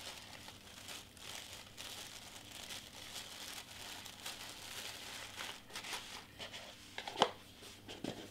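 Tissue paper rustling and crinkling as it is folded and tucked down into a small gift box, with a brief sharper knock near the end.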